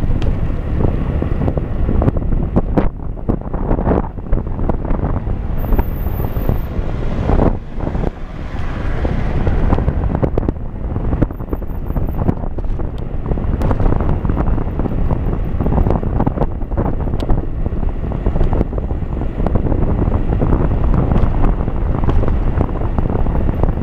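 Wind buffeting the microphone of a camera moving along a road: a loud, steady low rumble with a few sharp knocks.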